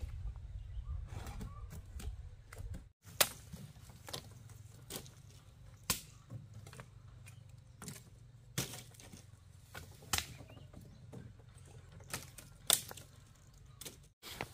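Dry cassava stalks being snapped and hacked with a machete: about a dozen sharp, irregular cracks and chops, over a low rumble that is heavier in the first few seconds.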